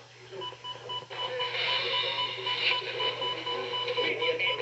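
Electronic alert beeping: a two-pitch tone pulsing rapidly on and off, about four beeps a second, from an alerting receiver. From about a second in, radio or TV program audio with music and voices plays over it.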